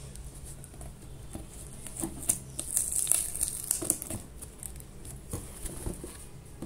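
Scissors cutting through plastic packing tape on a cardboard box: a burst of crackling, scratchy snips from about two to four seconds in, then a few lighter knocks and scrapes as the box is handled.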